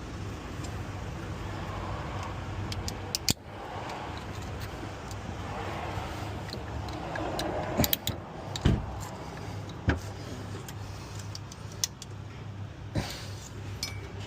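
Sharp metal-on-metal clicks and small scrapes from a hand tool picking at a thread-repair coil insert, hooking its tang to pull it out of a stripped tensioner bolt hole in the engine, over a steady low hum.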